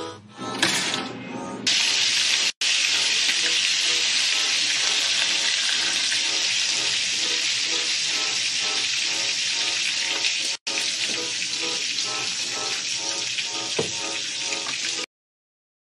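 Loud, steady hiss with faint music underneath, cutting out abruptly twice.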